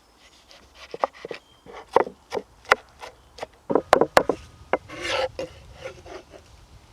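Irregular sharp wooden knocks, about a dozen, then a short scraping rub about five seconds in.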